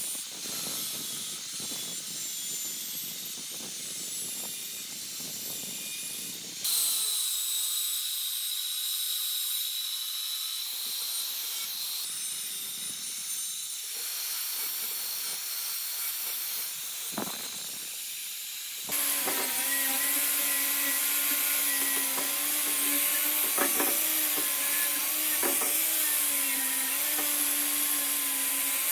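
Angle grinder grinding the steel cooling-fan blades of an electric motor armature: a steady hissing grind of abrasive disc on metal, in several separate passes. In the last third the grinder's motor is heard as a steady hum under the noise.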